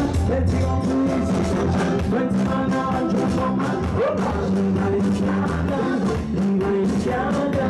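Live band music: amplified drums, bass and electric guitar over a steady beat, with a male vocalist singing into a microphone.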